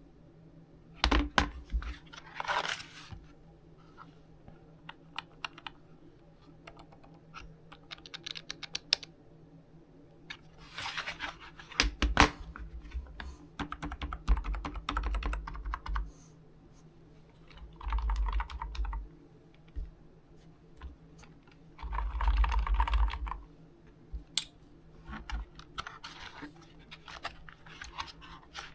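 Typing on a cheap Daiso office keyboard with round, typewriter-style keycaps: irregular runs of clacking key presses with short pauses between them.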